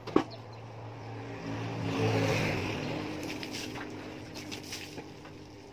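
A motor vehicle's engine hum that swells to a peak about two seconds in and fades away, as a vehicle passing on the road would. There is a sharp knock just after the start, and water from a hose splashes on the motorbike.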